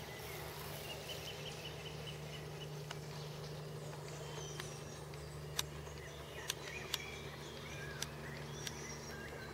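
Outdoor ambience of small birds chirping on and off, including a quick run of pips early on, over a steady low hum, with a few sharp clicks in the second half.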